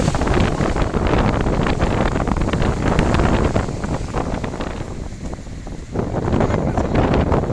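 Wind buffeting the microphone, with surf breaking underneath. The gusts ease briefly about five seconds in and pick up again a second later.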